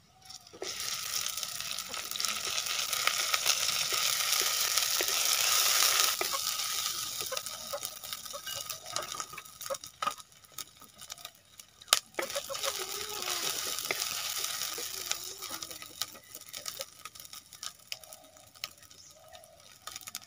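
Oil sizzling in a clay kadai as food fries and is stirred with a wooden spatula. The sizzle starts half a second in, is loudest over the first six seconds and thins out toward the end. Two sharp knocks of the spatula on the pot come about ten and twelve seconds in.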